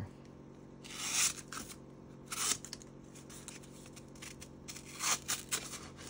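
A Spyderco PM2 folding knife with an S45VN steel blade slicing through a sheet of paper as a sharpness test: short rustling, scraping cuts about a second in, again around two and a half seconds, and a quicker run of cuts around five seconds.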